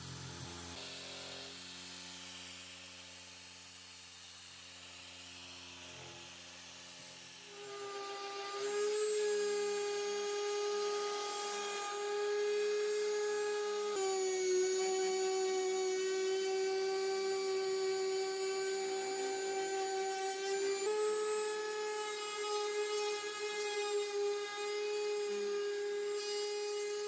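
For about the first eight seconds a power tool spins an abrasive disc against the rusty steel saw blade with a low steady hum. Then an electric random orbital sander runs on the blade with a louder, steady high-pitched whine.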